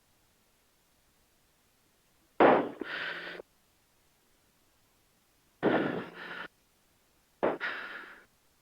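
Three short breathy bursts through a helmet intercom microphone, each cutting in sharply and dying away within about a second, with dead silence between them.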